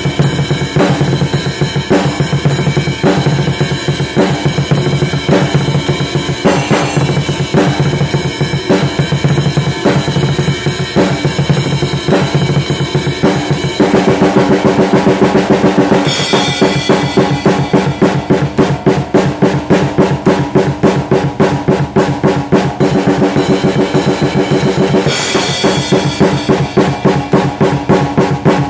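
Acoustic drum kit played hard and fast: snare, bass drum and cymbals in a driving groove. About halfway through it breaks into a roll, then carries on with rapid, even strokes.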